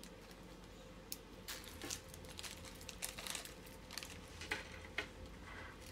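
Faint crinkling and rustling of a small plastic zip bag handled by fingers, in several short bursts with a few light clicks, as loose resin drills are put into it.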